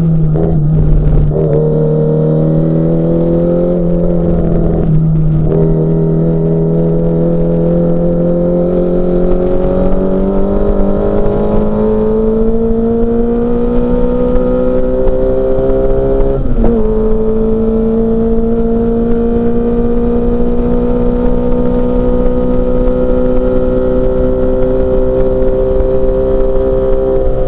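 Classic Mini Cooper S race car's four-cylinder engine under load. The revs climb slowly over long stretches, with brief breaks in the note about a second in, about five seconds in and about sixteen seconds in.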